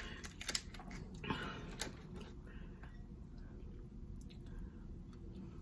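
Lobster tail meat being pulled from its shell and dipped in butter sauce: a few faint wet squishes and clicks in the first two seconds, then quieter.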